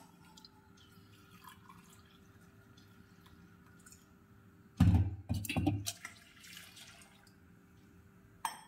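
Kitchen sounds of tea being made: water dripping into a pan, with one loud knock of a pot or vessel being handled about five seconds in, over a faint steady hum.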